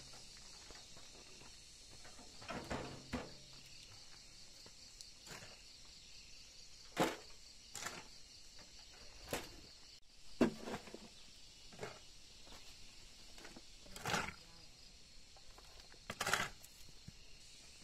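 Steel shovel stabbing and scraping into loose soil in separate strokes every second or two, over a steady high insect drone.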